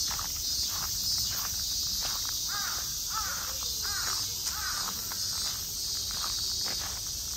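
A crow cawing four times in quick succession around the middle, over footsteps and a steady high insect drone.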